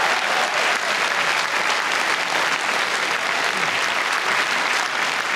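Audience applauding steadily, a dense even patter of many hands clapping.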